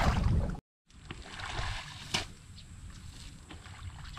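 Water splashing and trickling as a small fishpond is drained. It is loud for the first half second, cuts out completely for a moment, then comes back as a softer trickle with a single sharp knock about two seconds in.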